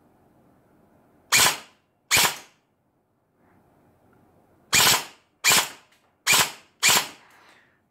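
Specna Arms Edge 2.0 SA-E39 electric airsoft M4 carbine firing 0.25 g BBs on its full-auto setting: six short, sharp shots, two together about a second and a half in, then four more at an even pace from about five seconds in.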